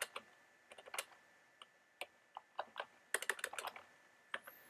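Typing on a computer keyboard: scattered keystrokes, with a quick run of several keys about three seconds in.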